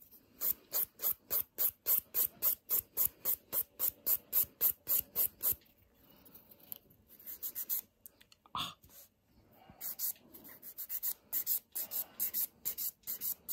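A hand nail file rasping across a gel nail in quick, even strokes, about three a second. After a short pause and a brief knock, the filing resumes in lighter, irregular strokes.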